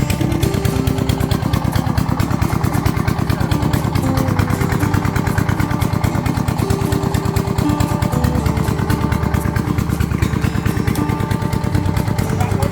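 A small engine running steadily, its rapid firing pulses even throughout. Short held tones at changing pitches sound over it.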